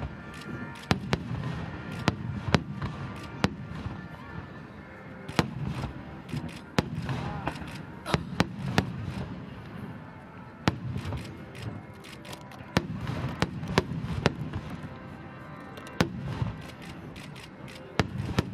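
Aerial firework shells bursting in a rapid star mine barrage: many sharp bangs at irregular intervals over a continuous rumble and crackle of overlapping explosions.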